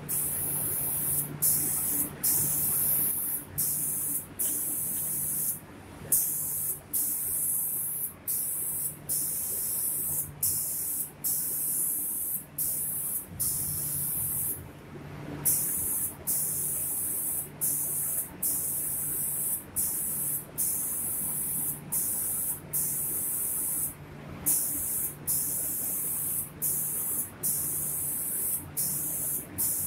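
Automatic spray gun of a cabinet-door painting machine spraying paint. Its hiss cuts off briefly about once a second as it makes its passes, with longer pauses about every nine seconds, over a low machine hum.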